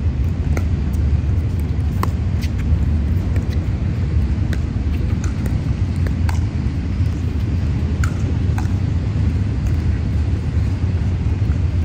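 Pickleball paddles striking the plastic ball: sharp pops every second or so during the rally, some fainter ones from neighbouring courts. Under them runs a steady low rumble, the loudest thing heard.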